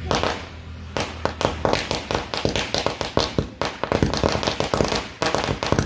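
Diwali firecrackers going off in a rapid, irregular series of sharp cracks, several a second.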